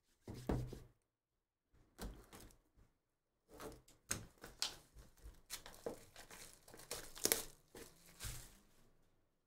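Plastic shrink-wrap being torn and peeled off a sealed trading-card hobby box, crinkling in irregular bursts, with a couple of short pauses in the first few seconds.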